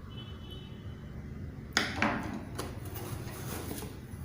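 Cardboard packaging being handled, with two sharp knocks close together about two seconds in.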